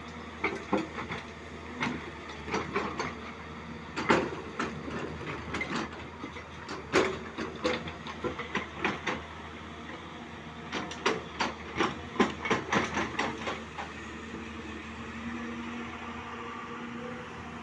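Hyundai 215 excavator at work: its diesel engine runs steadily under irregular metallic clanks and knocks. The loudest knocks come about four and seven seconds in, and the clanking thins out near the end.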